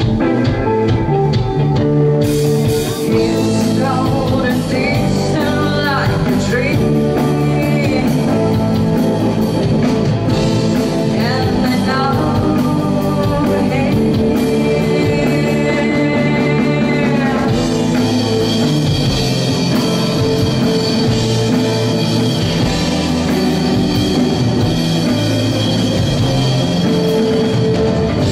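Live rock band playing: electric guitars, bass guitar and drum kit, with a lead line sliding and bending in pitch through the middle of the stretch.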